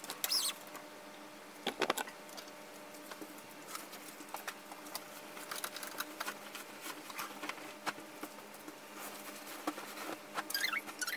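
Bedding rustling and flapping as a duvet and its cover are pulled about and shaken, with scattered light knocks and crackles over a steady low hum. A few short, falling, high squeaks come near the end.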